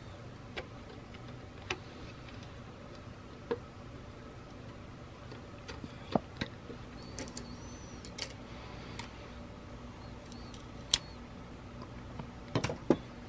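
Small, sharp metal clicks and taps, spaced irregularly, from tools and parts of a vintage camera being handled during disassembly, with a quick cluster of clicks near the end. A faint steady hum runs underneath.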